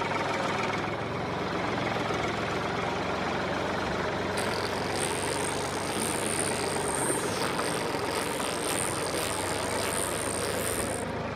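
Steady engine running, like a tractor's engine, as the toy tractor pulls its sand-filled trailer forward. A thin high hiss joins about four seconds in and drops out shortly before the end.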